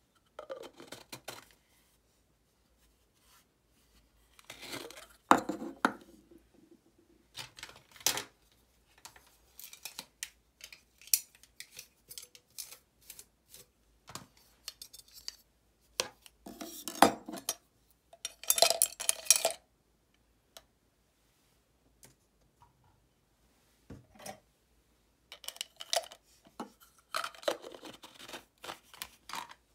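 Hard 3D-printed plastic pencil case being handled: its two tube halves pulled apart, set down on a wooden tabletop and pushed back together. The sound is scattered clicks, knocks and scraping in short clusters with quiet gaps between them.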